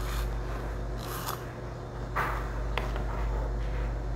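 Chef's knife slicing lengthwise through celery stalks on a plastic cutting board: a few short, crisp cutting strokes.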